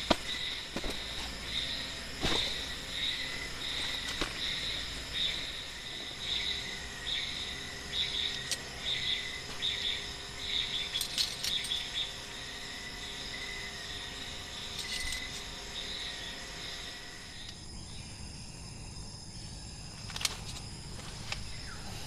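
Night insects chirping in a steady pulsing rhythm, one or two chirps a second, which stops about three-quarters of the way through. A few soft knocks of handling come in the first few seconds.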